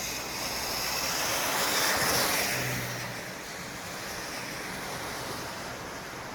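Road traffic noise: a vehicle passes, its tyre noise swelling to a peak about two seconds in and fading away, over a steady hiss of more distant traffic.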